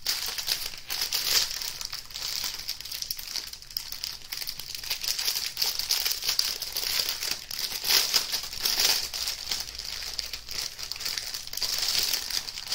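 Clear plastic bag holding diamond-painting drills and a toolkit being handled and opened in the hands, crinkling continuously with dense, high crackles.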